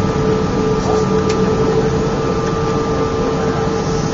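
Airbus A319 passenger cabin noise in flight: a steady rush of engine and airflow noise with a constant hum running through it.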